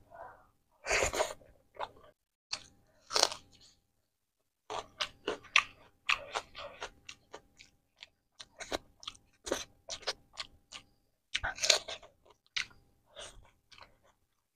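Close-miked eating sounds of a person chewing a handful of rice and egg curry: irregular wet chewing, smacking and clicking, with a few louder crunchy bites about a second in, around three seconds, and near twelve seconds.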